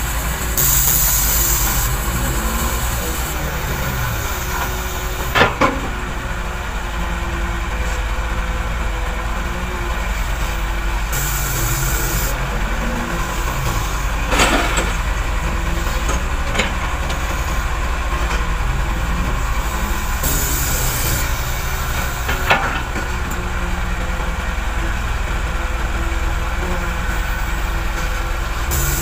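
Excavator's diesel engine running steadily through its loading cycle. A short hiss comes about every nine seconds, and a sharp knock sounds three times between the hisses.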